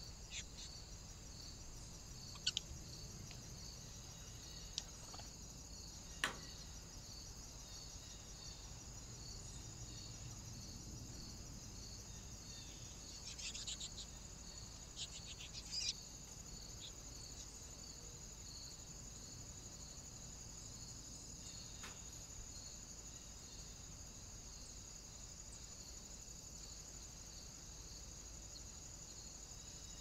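Faint, steady high-pitched chirring of insects, with a regular pulse about twice a second. A few short clicks break in, the sharpest about six seconds in and a cluster between about 13 and 16 seconds.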